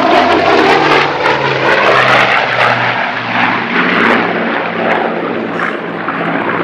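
Grumman F7F Tigercat's twin Pratt & Whitney R-2800 radial engines running hard as it climbs away. The engine note pulses in beats and slowly fades.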